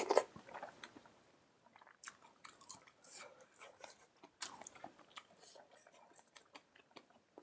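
Close-miked chewing: soft wet mouth clicks and small crunches coming irregularly, mostly from about two seconds in.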